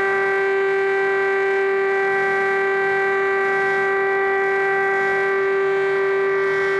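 Chinese civil air-defence siren sounding one steady, unbroken tone with no rise or fall in pitch.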